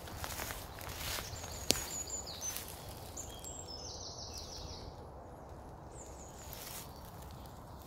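Footsteps through woodland undergrowth, softer in the middle, with songbirds singing: high chirps and a quick run of repeated notes in the middle. A single sharp click, the loudest sound, comes a little under two seconds in.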